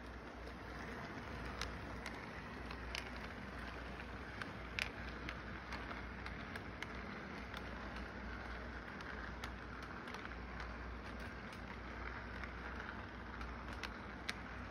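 Electric model train running on its layout track: a steady rolling rumble of wheels and motor, with scattered sharp clicks as the cars pass.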